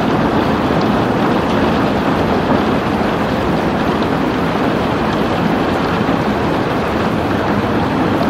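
Steady rainfall: a dense, even hiss.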